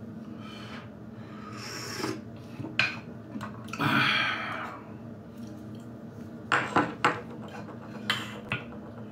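Clay teacup and teapot handled on a tea tray: a short rushing sound about four seconds in, then a few sharp clinks of clay on clay in the second half.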